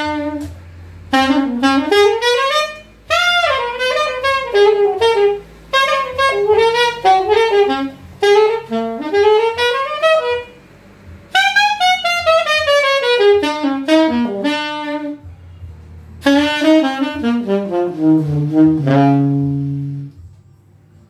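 Saxophone playing a melody in separate phrases with short breaks between them, sliding between notes and ending on a long held low note; its plain, dry sound without added effects.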